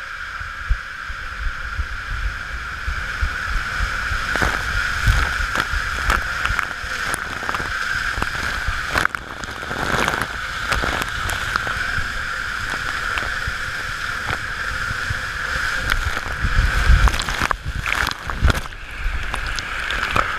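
Water and a rider rushing down the inside of an enclosed plastic water-slide tube: a steady rushing sound with many irregular knocks and low thumps as the body and camera bump the tube walls. Heavier thumps and splashing come near the end as the rider shoots out into the runout pool.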